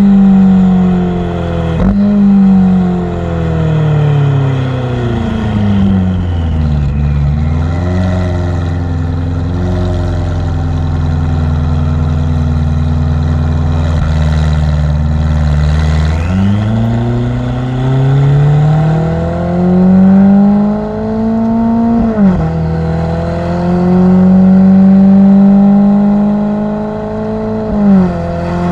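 Ferrari F8's twin-turbo V8 through its exhaust: high revs falling away over several seconds to a low steady run, then climbing back up and held high, with quick brief dips in the revs. A faint turbo whistle falls as the revs drop and rises again as they climb.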